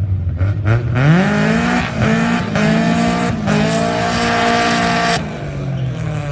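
Two drag-racing cars launching off the start line. The engines are blipped at the line, then about a second in they rise sharply in pitch and climb through several gear changes over about four seconds, fading as the cars pull away down the strip.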